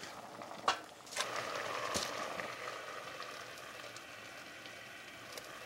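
Cut fennel pieces slid off a plate into a pot of boiling water: a few splashes and knocks in the first two seconds, then a steady bubbling hiss that slowly dies down.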